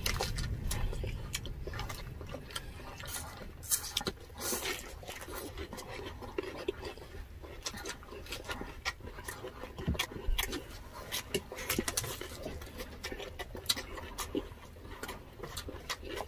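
Close-up eating sounds: chewing, with frequent short sharp crunches and clicks, as crispy pata (deep-fried pork leg) with its crackling skin is torn by hand and eaten.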